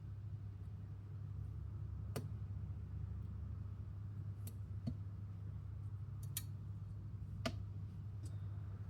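Scattered light clicks and taps of small gun parts being handled and fitted, about six in all and the loudest near the middle and end, over a steady low hum.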